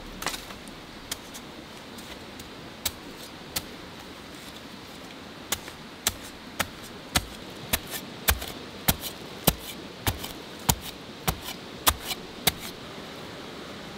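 Small steel spade striking and chopping into dry, root-filled earth: a few scattered strikes at first, then sharp blows at about two a second for around seven seconds. Under it a steady background hiss.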